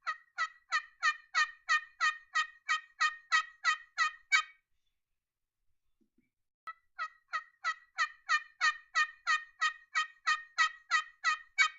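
Domestic hen calling: a rapid, even series of short, clipped notes, about three a second, in two bouts with a pause of about two seconds between them.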